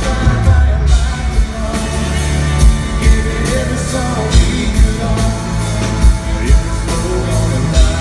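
Live country-rock band playing loudly: a male singer over acoustic guitar, electric bass and a steady drum beat.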